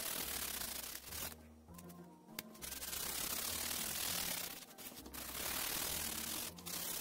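Felt-tip marker scribbling back and forth on thin cereal-box cardboard: a dry rubbing hiss in runs of a second or two, with short pauses between strokes.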